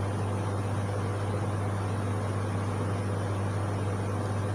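A steady low mechanical hum from a running appliance, with an even hiss under it; the level stays constant throughout.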